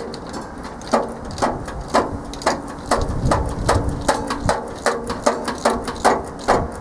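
Wrench working a bolt on the sheet-metal blower housing of a squirrel-cage fan, tightening the motor mount: sharp metallic clicks about twice a second, each with a short ring from the housing.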